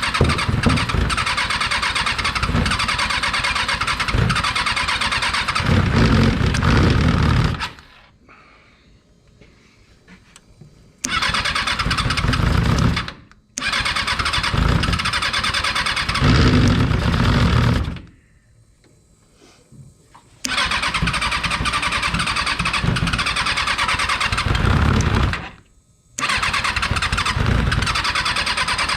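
Rebuilt Kawasaki 636 inline-four motorcycle engine in a micro sprint car being cranked on its starter, trying to fire. It comes in five bursts of two to seven seconds, each cutting off sharply into a short pause.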